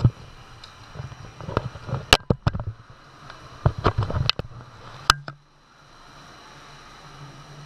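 Handling noise from a camera being fixed in place: a run of sharp knocks and clicks that stops about five seconds in. A steady low hum is left after it.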